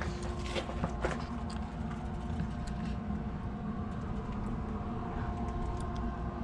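Steady low mechanical rumble with a faint steady hum over it, and a few light clicks in the first second or so.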